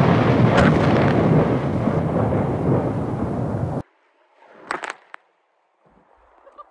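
Thunder rumbling loudly and steadily, then cutting off abruptly about four seconds in; a few faint knocks follow in near silence.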